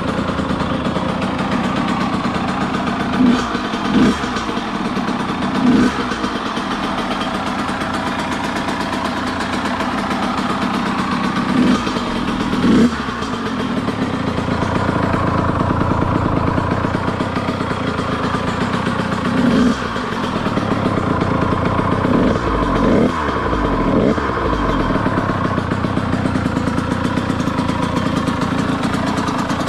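Kawasaki KX100's two-stroke single-cylinder engine idling, with a series of quick throttle blips where the pitch rises and falls back. The engine is running after a top-end rebuild with a new piston and a freshly honed cylinder.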